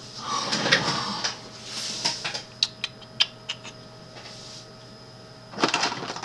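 Rustling and handling noises with a run of sharp clicks partway through, from someone moving about close to the microphone.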